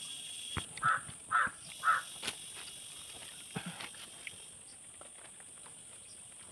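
A crow cawing three times in quick succession, about half a second apart, followed by a few light clicks.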